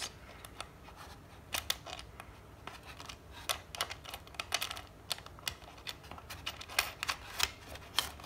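Irregular small clicks and taps as a metal nut is turned by hand onto the charging socket in a plastic hoverboard shell, with fingers knocking against the plastic.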